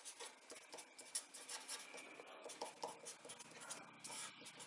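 Faint scratching of a pen on paper in short, quick strokes as mathematical symbols are written by hand.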